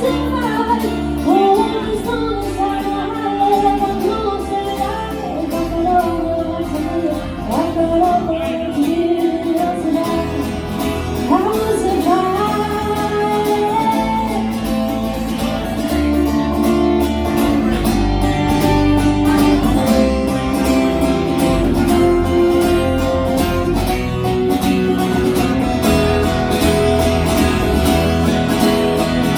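Live band playing a song: singing over guitar and bass.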